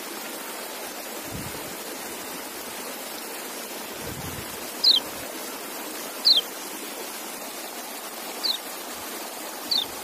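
White-eye (kecial) giving four short, high, downward-sliding chirps, one to two seconds apart, over a steady rushing hiss.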